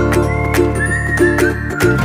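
Intro music with a steady beat, a bass line and short sliding high notes in the melody.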